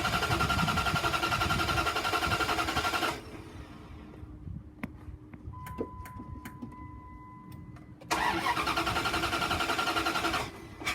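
A 5.9-litre V8 gas engine cranking over on the starter without catching, in two tries of about three seconds each with a quieter gap between them holding a few clicks and a steady beep. It does not fire even on starting fluid, which is taken for a lack of spark.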